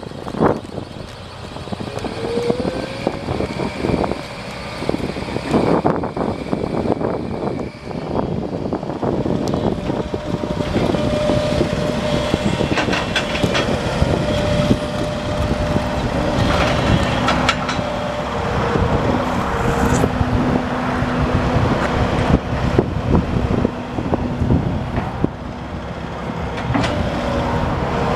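Link-Belt 135 Spin-Ace crawler excavator running and working, its diesel engine and hydraulics growing louder over the first few seconds. A steady whine sets in partway through, and short clanks and knocks sound throughout.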